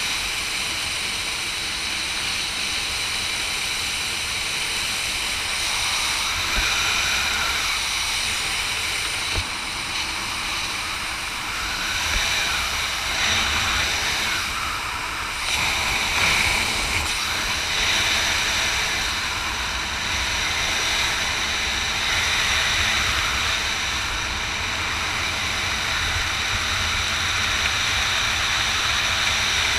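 Steady rush of wind over the camera's microphone during a parachute descent under an open canopy, with low buffeting rumble that swells a few times.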